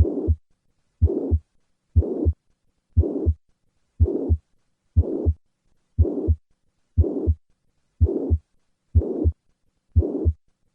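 Heart auscultation recording of a holosystolic regurgitant murmur, the sign of atrioventricular (mitral or tricuspid) valve regurgitation. At about one beat a second, each first and second heart sound is joined by a whooshing murmur that fills the whole gap between them.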